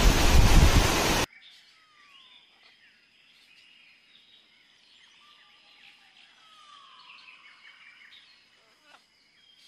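A loud rushing noise that cuts off suddenly about a second in. It gives way to faint birdsong, several short chirping and gliding calls, over a steady thin high-pitched tone.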